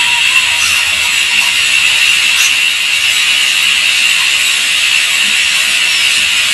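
Dental drill whining at a steady high pitch while cutting into a tooth to open it for a root canal.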